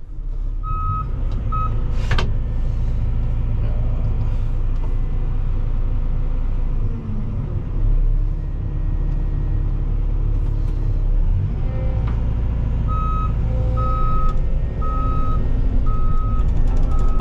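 Cat 313 excavator's diesel engine running under load as the hydraulics work, with a sharp knock about two seconds in. The machine's warning alarm beeps twice near the start, then beeps steadily about once a second over the last few seconds.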